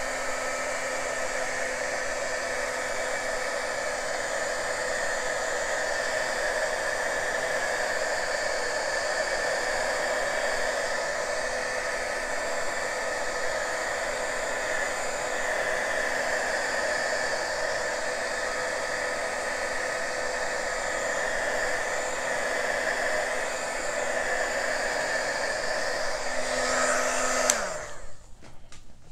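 Small handheld dryer running steadily, a constant blowing hiss with a steady whine in it; it is switched off with a click near the end.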